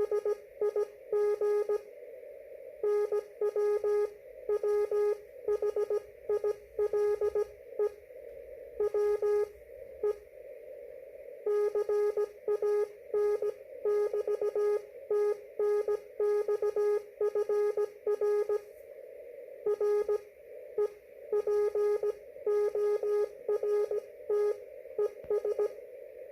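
Slow-speed Morse code (CW) from an amateur radio transceiver: a single steady tone keyed on and off in dots and dashes, with several longer pauses between characters and words. A constant hiss of receiver noise runs underneath.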